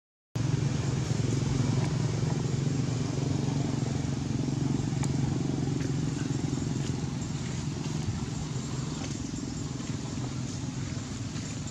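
Steady low engine drone that cuts in suddenly just after the start and eases slightly later on.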